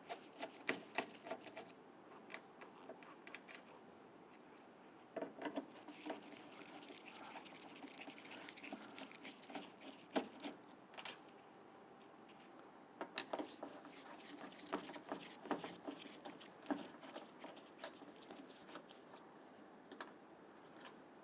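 Phillips screwdriver loosening and removing screws from the edge of a car door: faint, scattered clicks and scrapes throughout.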